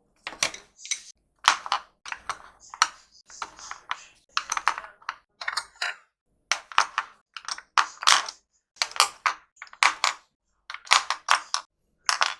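Graphite pencils clicking and clacking against each other as they are handled and sorted, in quick irregular clusters of clicks.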